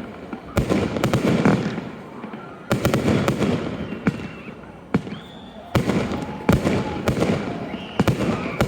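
Fireworks display: aerial shells bursting in a series of sharp bangs, sometimes several within a second, each trailing off in a rumbling echo.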